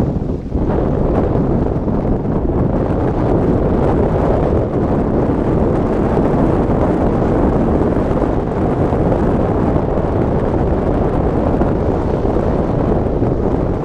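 Loud, steady rushing of wind buffeting the microphone outdoors, with a short dip about half a second in.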